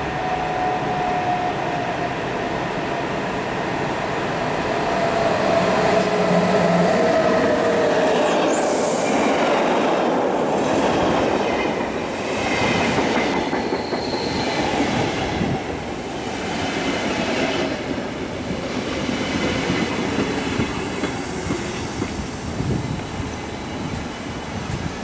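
SBB electric locomotive and InterCity coaches running along the station platform. A slowly falling whine comes first, then regular clatter as the coaches' wheels pass over the rail joints, fading towards the end.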